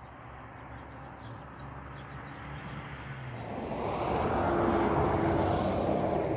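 A motor vehicle on the road drawing near and passing, its engine and tyre noise growing steadily louder and peaking about four to five seconds in before starting to fade.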